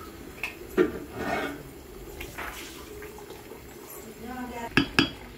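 Kitchen pots and utensils knocking: one sharp knock about a second in and two sharp knocks close together near the end, over indistinct voices.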